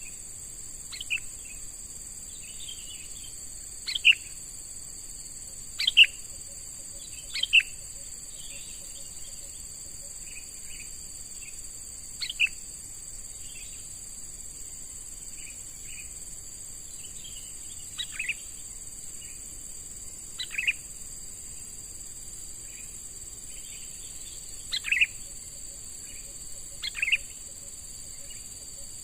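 Sooty-headed bulbul (kutilang) giving about nine short, sharp calls, each falling in pitch, spaced irregularly a few seconds apart, with softer chatter between them. Underneath runs a steady high-pitched drone of insects.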